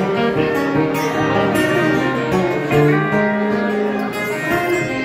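Live band music: an acoustic guitar strummed, with a fiddle playing held notes over it.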